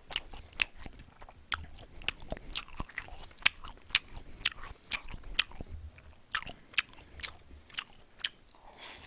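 Close-miked chewing of japchae glass noodles: a string of sharp, wet mouth smacks and clicks, a few a second, irregular.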